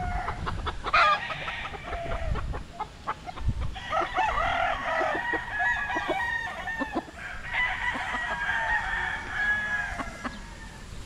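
Several gamecocks crowing, their crows overlapping, with clucking in between.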